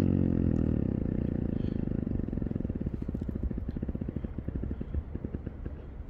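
Snow leopard's low growl, a drawn-out rumble that breaks into a rapid rattle about two seconds in and slowly fades.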